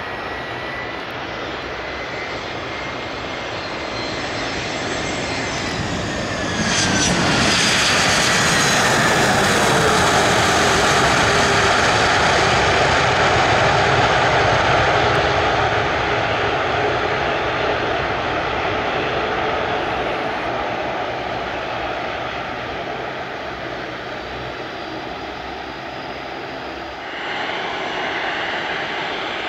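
Airbus A321-211 with CFM56 jet engines landing: the approach whine falls in pitch, then about six seconds in the engines break into a loud roar on the landing roll, typical of reverse thrust, which fades over several seconds. Near the end the engines run at a steadier, lower level as the jet taxis.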